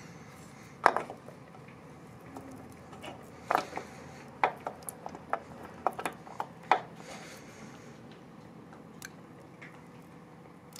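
Small metal engine parts clinking and knocking as a Milwaukee-Eight's cam-drive gears are pulled off and handled: a scattered string of sharp clicks, most of them in the first seven seconds, then only one or two more.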